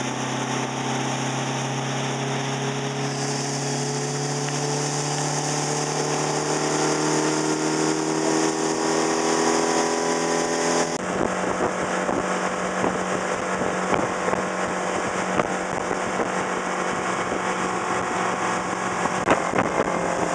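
Motorboat engine pulling a tube rider, its pitch climbing slowly as it speeds up. About eleven seconds in the sound changes abruptly to wind buffeting the microphone over a steady engine note.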